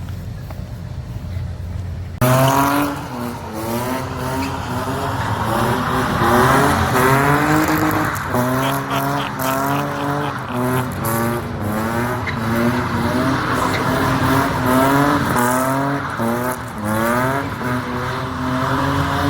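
Low engine rumble, then from about two seconds in a car engine revving hard over and over, its pitch climbing and dropping, with tire squeal and hiss from a burnout.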